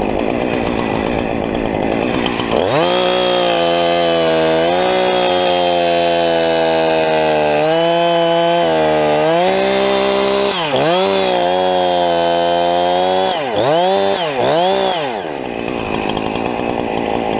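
Chainsaw revving up from idle about two and a half seconds in and held at full throttle while cutting through the trunk section, its pitch dipping a few times as it bogs in the cut, then falling back to idle near the end: the back cut that readies the wood to drop.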